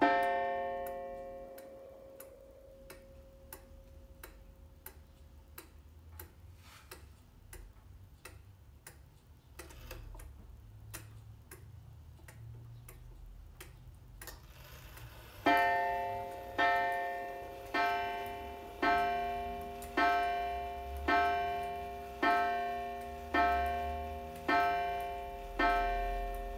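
Antique oak pendulum wall clock striking. A single struck note rings out and dies away over a couple of seconds, then the clock ticks steadily. About fifteen seconds in, the hour strike starts: the same note struck again and again, evenly, a little over a second apart.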